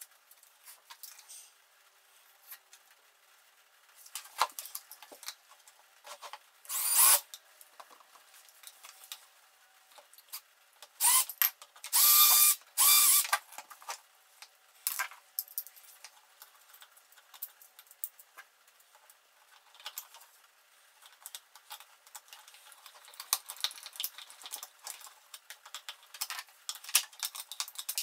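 Short runs of a small power drill, once about a quarter of the way in and then three bursts in quick succession around the middle, each under a second, among light clicks and rustles of small parts being handled.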